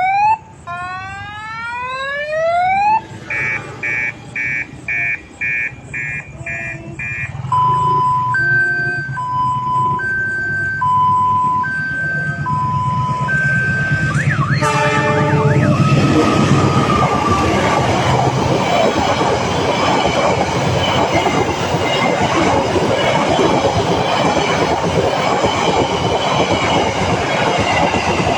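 Electronic odong-odong siren sounding as a level-crossing warning that a train is coming: it cycles through rising whoops, a run of short beeps and an alternating two-note wail. About fifteen seconds in there is a short horn note, and then a train passes with a loud, steady rumble.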